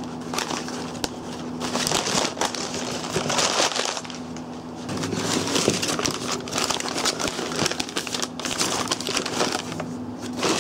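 White packing paper crinkling and rustling as it is handled and pulled around inside a cardboard box. It comes in irregular bursts, with a short lull about four seconds in.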